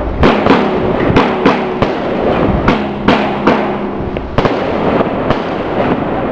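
Small consumer firework mortars and fused cake shots firing and bursting in rapid succession, about a dozen sharp bangs with short echoes, thinning out near the end.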